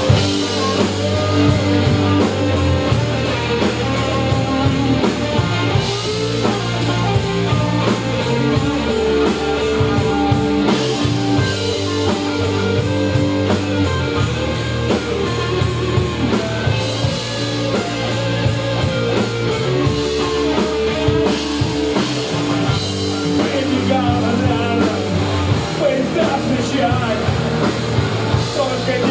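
A rock band playing live: electric guitars, bass guitar and a drum kit, with cymbals keeping a fast, even beat.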